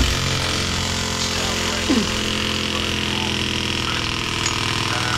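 Cordless impact wrench hammering steadily on the timing sprocket nut of a classic Mini engine for several seconds without a break, the nut not coming free.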